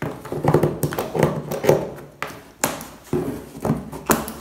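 A small cardboard box being opened by hand: a quick run of scrapes, rustles and knocks, then sharper single knocks about every half second.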